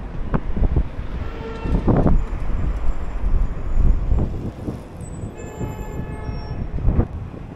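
Street traffic in a strong wind: gusts buffet the microphone unevenly, and a vehicle horn sounds briefly, then again for about a second and a half from around five and a half seconds in.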